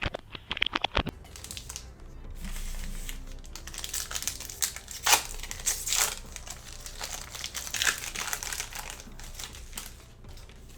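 Plastic wrapping of a blaster box of football trading cards and its card packs crinkling and tearing as they are opened. There are quick ripping ticks in the first second, then steady crackling with a few sharper rips about five and six seconds in.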